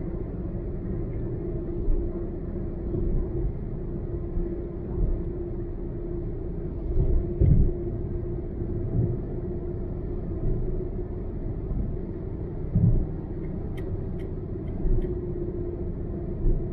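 Car driving along a highway: a steady low rumble of road and engine noise with a constant drone, and a few brief low thumps.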